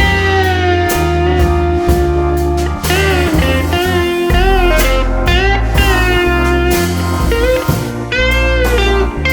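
Instrumental music: a guitar playing a slow melody with notes that slide and bend in pitch, over steady low bass notes.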